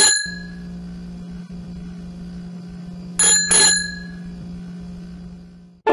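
Bicycle bell ringing: one ring right at the start, then a quick double ring about three seconds in, over a steady low electric hum that stops just before the end.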